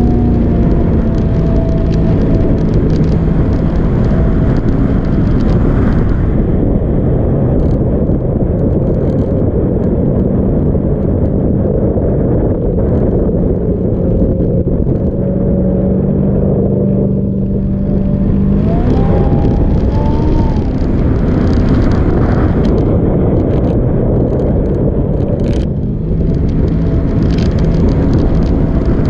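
Jet boat engine running at speed over a steady rushing noise. The engine note climbs about two-thirds of the way through, then settles back.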